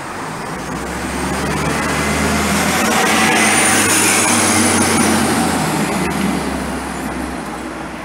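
2006 Blue Bird Xcel 102 CNG bus with a John Deere 6081H engine driving past and pulling away: a steady low engine drone with a faint high whine. It grows louder to a peak about three to five seconds in as the bus passes close, then fades as it heads down the street.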